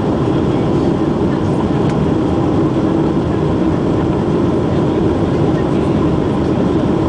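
Steady cabin noise inside a Boeing 737-800 in flight: the low, even drone of its CFM56 jet engines blended with the rush of air past the fuselage.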